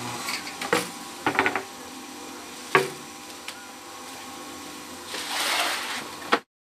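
Semi-automatic hydraulic fly ash brick press running with a steady hum, broken by several sharp metallic clanks and knocks, the loudest about three seconds in. A rushing hiss comes near the end, and the sound cuts off abruptly.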